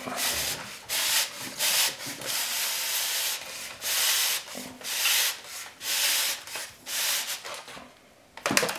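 Plastic diffuser cover of an LED light fixture rubbing and scraping against the fixture's metal housing as hands press and slide it into its groove: repeated scraping strokes that ease off briefly near the end.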